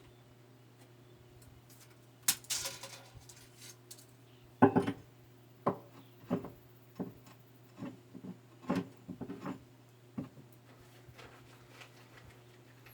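Irregular knocks and clatters of objects being handled and set down, the loudest a little under five seconds in, over a faint steady hum.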